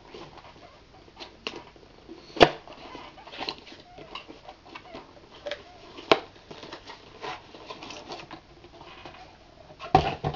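A box and its packaging being opened and handled by hand: crinkling and rustling with many small clicks, and sharp knocks about two and a half, six and ten seconds in.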